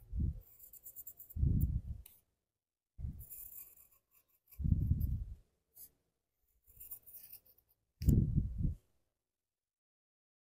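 A pencil scratching on paper in about six separate bursts of drawing strokes, each half a second to a second long, with a dull low rumble under each.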